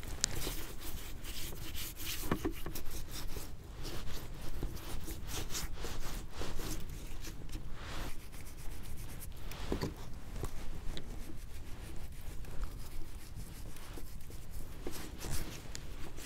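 Hands rubbing salt into a rack of raw lamb ribs: an irregular rubbing and rustling with many small ticks.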